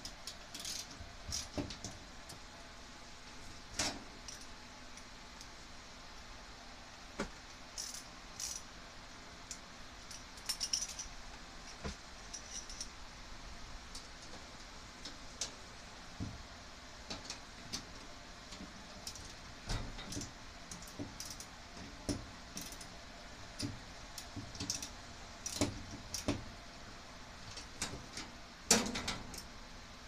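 Intermittent light metallic clicks and clinks of hand tools and hardware being worked on a garage door's spring fittings, with a louder clank near the end.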